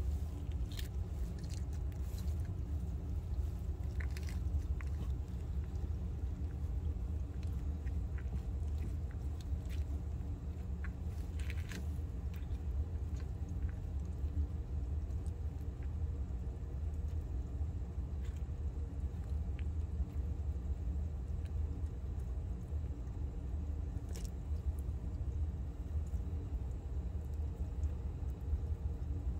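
A steady low hum, with a few faint crunches and clicks as a blue-tongued skink bites and chews a quail egg, cracking the shell.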